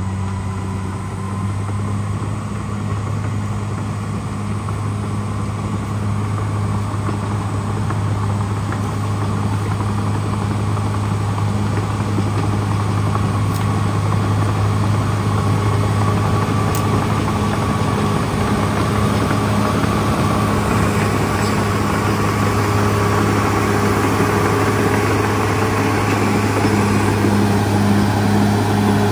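CAT D6R XL crawler dozer's diesel engine running steadily with a constant low hum, getting gradually louder through the stretch.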